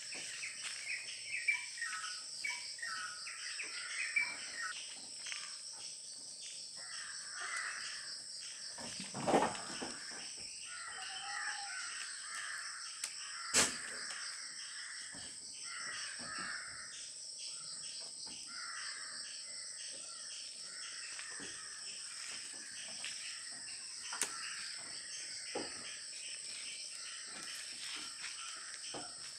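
Steady high-pitched insect trilling, with birds calling again and again and two sharp knocks about nine and thirteen seconds in.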